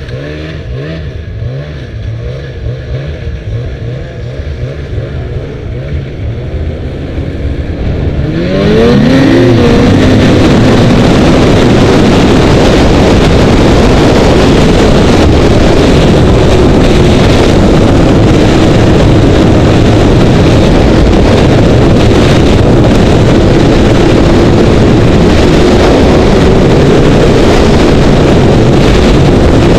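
Snowmobile engine running slowly with a low, pulsing note. About eight seconds in it revs up sharply, its pitch rising, then runs fast and loud for the rest, with a dense rushing noise over the engine tone.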